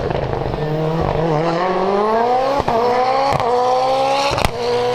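Hill-climb race car engine accelerating hard, its pitch climbing steadily, with three sharp cracks along the way before it settles on a steady note near the end.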